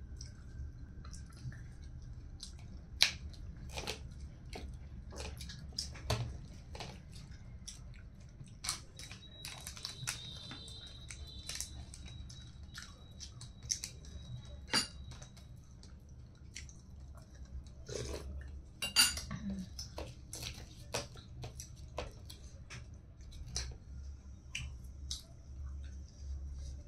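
Close-miked eating with the fingers: chewing and lip smacks, with many short sharp clicks and crunches as fried chicken and fish are eaten. The two loudest come about 3 s and 19 s in. A low steady hum runs underneath.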